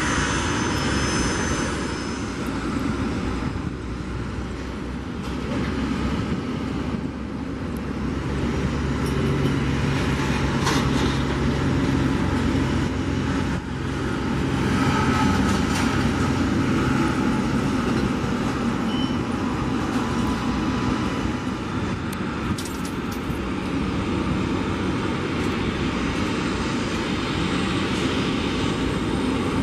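Jet engines: an Embraer E-Jet airliner climbing away after takeoff, its high whine fading in the first two seconds. About a third of the way in, a steady rumble and whine from a business jet at taxi power takes over.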